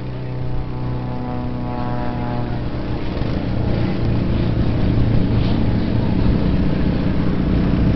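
Steady engine drone that grows gradually louder, with a higher hum over it for the first few seconds.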